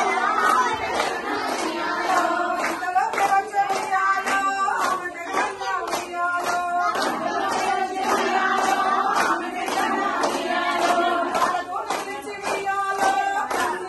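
A group of women clapping in time, about two claps a second, for the Boddemma circle dance, under women's voices singing a folk song.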